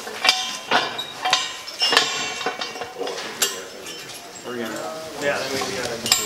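Steel A-frame tow bar being fitted to the Flakpanzer's towing points: a run of sharp metal clinks and knocks, about four in the first two seconds and another about three and a half seconds in, each ringing briefly.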